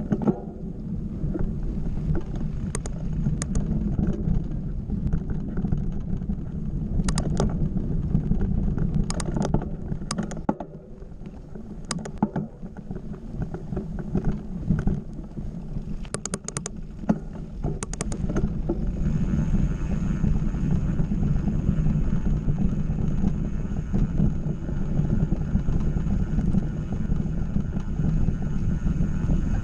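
Mountain bike riding on a dirt forest trail: steady low rumble of tyres and wind on the bike-mounted microphone, with scattered sharp clicks and rattles of the bike over bumps. About two-thirds of the way through, a faint steady high whine joins in.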